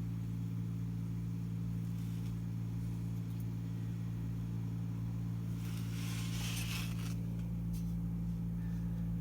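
Steady low electrical hum of HVAC equipment running, with a brief rustle about six seconds in.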